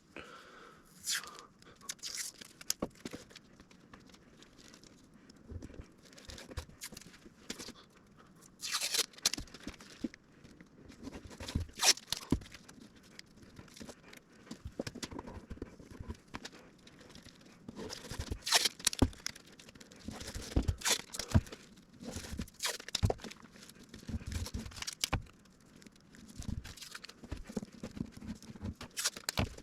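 Masking tape pulled off the roll and torn, with masking sheet crinkling as it is smoothed and wrapped over an edge. Irregular rustles, tears and small taps come and go with quiet gaps between.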